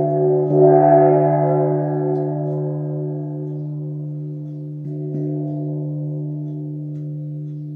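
48 cm Blau gong struck softly with a felt mallet about half a second in, ringing with a steady low hum and a stack of overtones that slowly fade. A lighter stroke near five seconds in lifts it again briefly.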